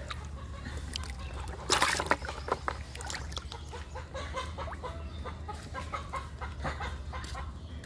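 Live tilapia thrashing and splashing in a plastic basin of water, loudest about two seconds in. A hen clucking over and over in the background through the second half.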